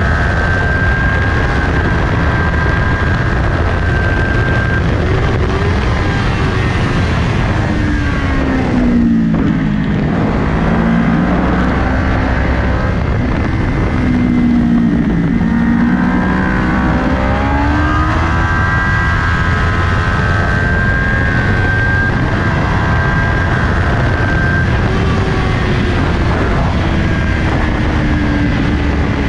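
Kawasaki Ninja 400's parallel-twin engine running at high revs under heavy wind rush at racing speed. About nine seconds in, the engine note drops as the bike brakes and downshifts for a corner, then climbs again as it accelerates out through the gears.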